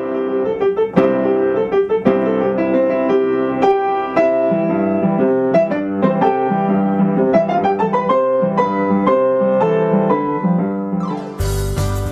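Song backing music: a piano plays a melodic intro of separate struck notes, then a full band with drums comes in near the end.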